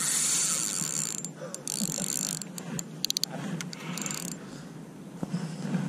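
Spinning reel ratcheting in several short bursts while a hooked sea trout is played close in, the longest and loudest burst right at the start, with a quick run of clicks about three seconds in.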